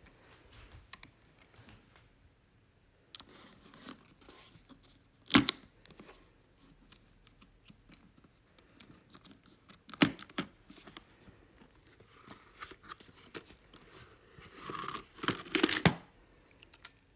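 Leather camera case being handled and opened: scattered clicks and knocks from its metal latches and from the case being moved, with two sharp knocks about five and ten seconds in and a cluster of knocks and rustling near the end.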